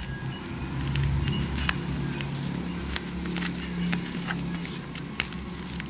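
Crinkling plastic bag and packing tape on a parcel being picked and cut open with a small plastic tool: irregular sharp crackles and clicks over a steady low hum.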